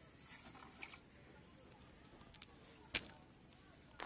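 Faint rustling of handling, with a single sharp click about three seconds in.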